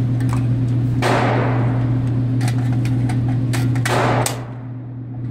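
Metal clicks and knocks as a 5-round magazine is handled and seated into a Vz 58 Sporter rifle. Under them runs a steady low hum, and two loud echoing bangs come about a second in and at about four seconds.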